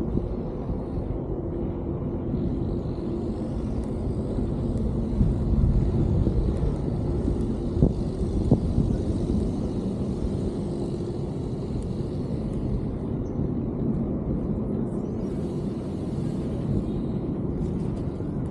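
Steady low outdoor rumble with a faint steady hum, and two short sharp clicks about eight seconds in.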